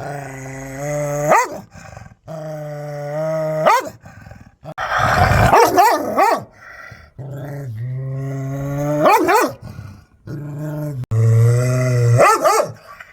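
A dog growling and barking: long, drawn-out growls, each breaking off into one or more sharp barks, repeated about five times with short pauses between.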